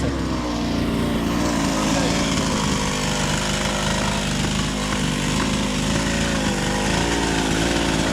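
A two-stroke chainsaw running steadily at high speed.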